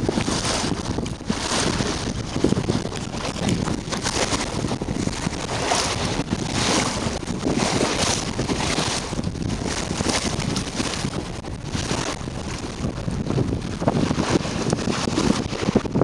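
Wind buffeting the microphone in gusts over the rush of water along the hull of a small sailing dinghy under way.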